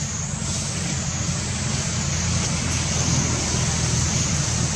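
Steady outdoor background noise: a continuous low rumble with a steady high hiss above it.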